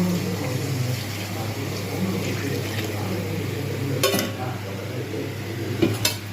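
Tamarind water being poured into a pan of sautéed onions and tomatoes, a steady liquid pouring noise. Two sharp clinks of utensils on the pan, about four seconds in and again near the end.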